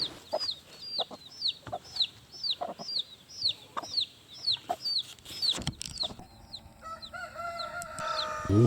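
Baby chicks peeping, a run of high, falling peeps about two or three a second, with a broody hen's low short clucks among them. The peeping stops about six seconds in, when a longer held call is heard.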